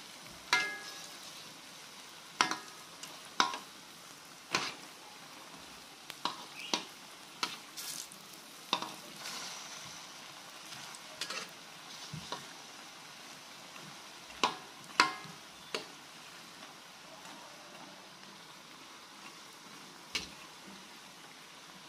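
Cassava balls deep-frying in a wok of oil, with a steady sizzle throughout. A slotted metal spatula turns them and clinks sharply against the pan a dozen or so times, some clinks ringing briefly. The clinks thin out after about sixteen seconds.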